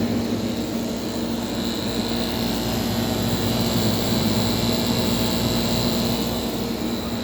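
Vintage General Electric Superthrust window air conditioner running: a steady hum and rush of air, with a faint high whine through the middle.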